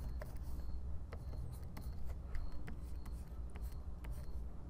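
Faint, scattered light clicks and scratches of a stylus on a graphics tablet, over a steady low hum.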